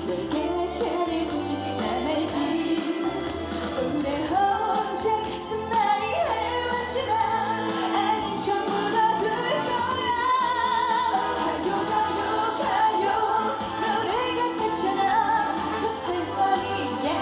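A woman singing a trot song live over a backing band with a steady beat.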